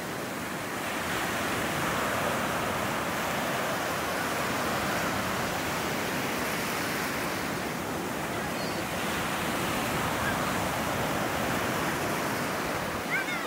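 Ocean surf breaking and washing in over the shallows: a steady rush of white water that swells a little louder about a second or two in.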